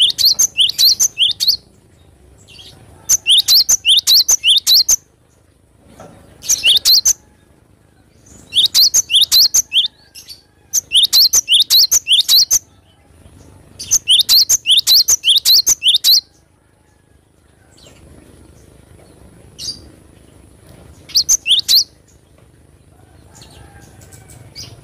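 Cinereous tit (gelatik batu) singing loudly: about seven bursts of quick, sharp, repeated high notes, each burst lasting one to two seconds, with pauses of a second or more between them and a longer pause near the end before a short last phrase.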